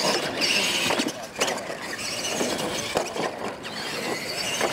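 Two R/C monster trucks launching off the start and racing on a dirt track: motors and gears whining, tyres churning dirt, with several short knocks along the way.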